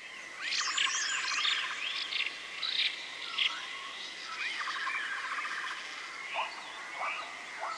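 Forest ambience sound effect: many bird chirps and arching whistled calls, some rising and falling, over a thin steady high tone.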